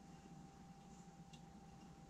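Near silence: the faint steady hum of lab equipment, with one faint tick about a second and a half in.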